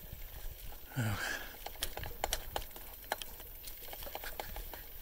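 Bicycle rattling and ticking while riding over a rough path: irregular sharp clicks, with a brief low falling sound about a second in.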